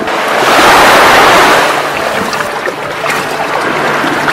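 Sea surf washing in over shallow water, one wave swelling loudest from about half a second to two seconds in, then a steadier wash.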